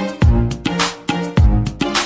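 Background music with a steady drum beat and pitched instrument notes.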